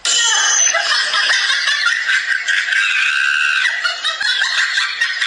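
Shrill, high-pitched giggling sound effect, loud and continuous, dubbed over the clip as a gleeful reaction.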